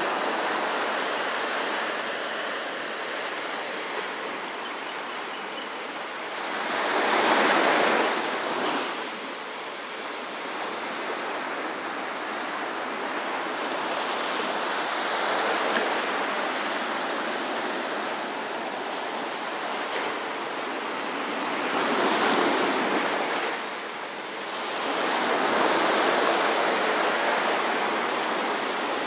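Small ocean waves breaking and washing up a sandy beach: a steady surf wash that swells louder as sets break, most strongly about seven seconds in and twice more in the last third.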